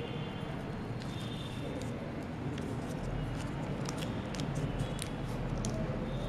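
Folded origami paper handled and creased by hand, giving short scattered crackles and clicks over steady background noise and a low hum.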